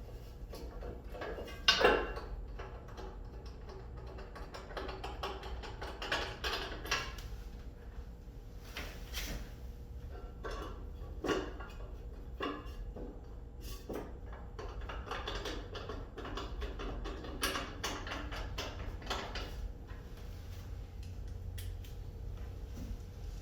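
Screws being driven back into a cast aluminum mailbox-post base with a Phillips screwdriver. Scattered clicks, scrapes and knocks of metal parts being handled, with one sharper knock about two seconds in.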